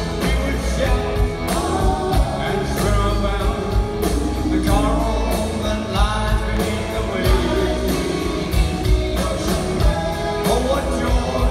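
Rock band music: a voice singing over guitar and drums, with a steady beat.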